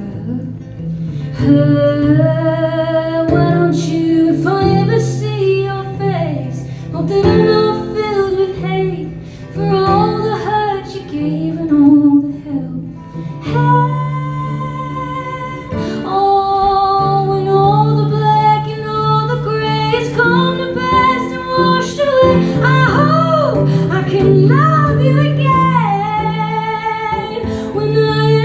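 Live performance of a song: a woman singing with guitar accompaniment, held low chords under a bending vocal line.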